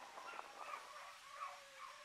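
Rabbit dogs faintly baying on a rabbit's trail, with long drawn-out cries about a second in, the sign that the pack is running the rabbit.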